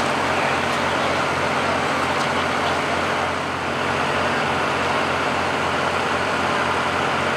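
A large engine idling steadily: an even, low hum that does not change.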